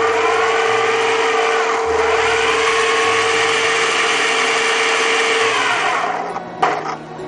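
Twin 540 electric motors and gear drives of a remote-control catamaran bait boat whirring loudly with a steady whine, dying away about six seconds in.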